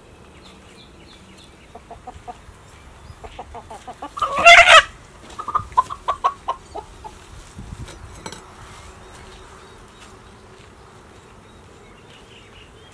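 Chicken clucking in a quickening run of short notes, then one loud squawk about four seconds in, followed by more clucks that fade away.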